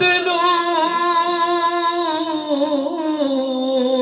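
A man's voice singing one long held note of a Punjabi naat, wavering slightly and sliding lower about two-thirds of the way through.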